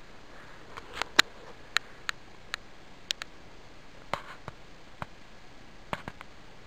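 Scattered sharp ticks and taps, about a dozen at uneven intervals, the loudest a little over a second in.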